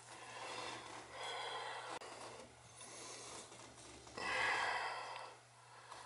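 Soft rubbing and handling noise as gloved hands set a locking-pliers clamp on copper pipe, mixed with breathing. There are a few breathy rustles, the loudest about four seconds in, over a steady low hum.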